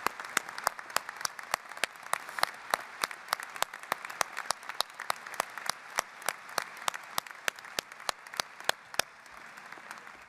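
Audience applauding, with one set of sharp claps, about three a second, standing out loudest above the rest. The applause dies away near the end.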